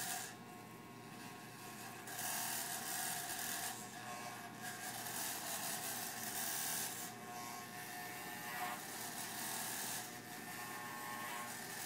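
Electric hair clippers running steadily while buzzing a head of hair, louder in several stretches of a second or two.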